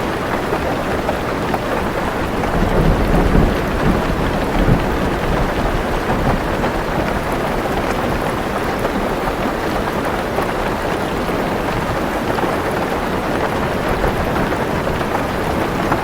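Heavy rain falling steadily on a car roof, heard from inside the car, with a low rumble of thunder building about two and a half seconds in and dying away by about five seconds.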